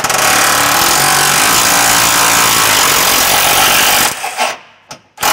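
Impact wrench spinning the rear upper shock bolt out of a Ram 1500's shock mount. It runs without a break for about four seconds, then gives two or three short bursts near the end.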